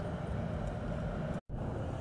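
Car engines running in a parking lot, a steady low rumble without a clear pitch. The sound cuts out for an instant about one and a half seconds in, where the recording is edited.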